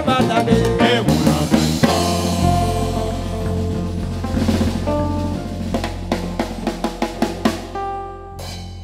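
A live band ending a song: a drum-kit roll with cymbal and snare hits over a held closing chord from electric guitar and bass. It finishes with one last hit, and the level falls away after it.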